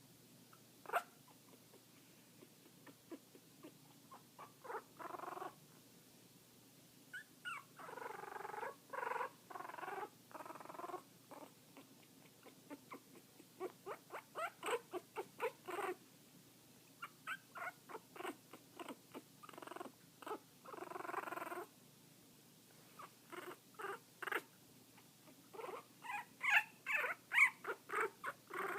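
A very young pet, two and a half weeks old, making its weird noise, a cross between a purr and Chewbacca: irregular runs of short rapid pulses, broken by a few longer rumbling calls, with the loudest pulses near the end.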